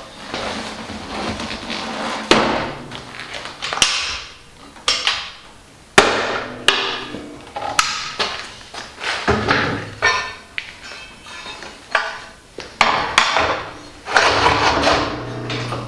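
Repeated clunks, knocks and short scraping sounds of a Kity planer thicknesser's parts being handled and swung over by hand while it is converted from thicknessing to planing. There are about a dozen separate knocks, some followed by a brief slide or rattle.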